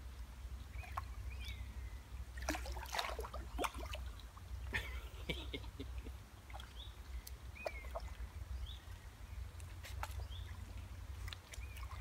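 Water splashing and sloshing in short, irregular bursts as a hooked carp fights at the surface close to the bank, being played toward a landing net.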